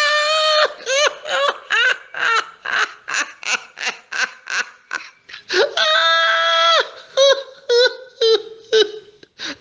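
High-pitched laughter: a long run of short bursts, about three a second, broken about six seconds in by one long held high cry, then more short bursts.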